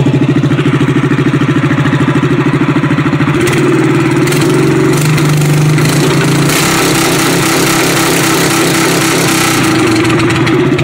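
Honda GX200 single-cylinder mud-motor engine running with a loud, pulsing exhaust beat. A few seconds in its note shifts, and from about the middle to near the end it runs harder with a broader, hissier exhaust sound before settling back to its idle beat.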